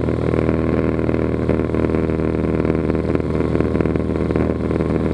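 Cessna 182RG's six-cylinder Lycoming engine and propeller droning steadily in cruise flight, heard from inside the cabin.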